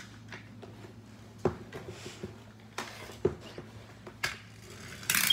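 Small plastic toy car handled on a wooden floor: four separate sharp knocks and clicks, then a quick rattle of clicks near the end, over a steady low hum.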